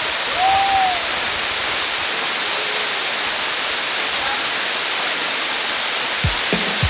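Waterfall rushing: a steady, loud wash of falling water. Near the end, bass-drum beats of music come in.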